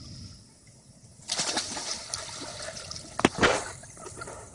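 Water splashing, starting about a second in, with a sharp knock about three seconds in.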